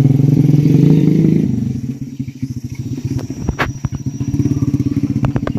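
A small engine running, loud for the first second and a half, then falling away to a fainter steady running, with a few sharp clicks near the middle.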